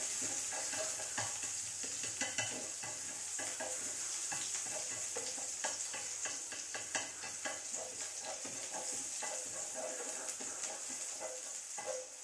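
Minced shallots frying in hot fat in a frying pan with a steady sizzle, while wooden chopsticks stir them and tap repeatedly against the pan.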